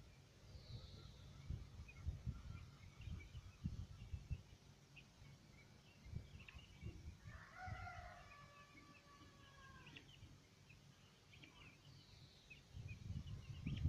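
A young chicken gives one long, drawn-out crow-like call of about three seconds, starting about seven seconds in and sagging slightly in pitch at its end. Low rumbling noise runs underneath.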